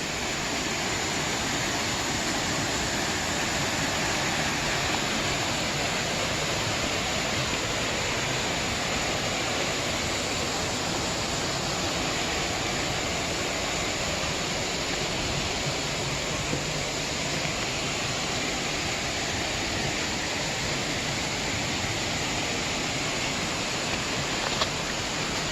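Steady rushing of water flowing in a mountain stream.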